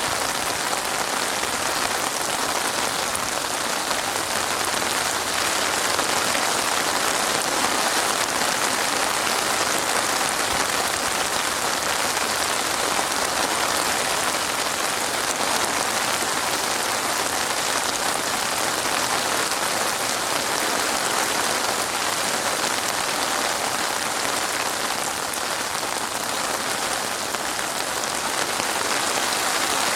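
Steady rain falling on a surface, a constant even hiss of many drops.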